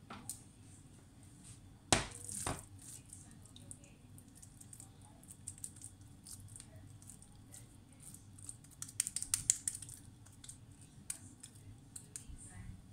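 Kitchen handling noises over a faint low hum: a sharp knock about two seconds in, then a run of small clicks and wet taps around the middle as raw minced-meat cutlet mixture is handled.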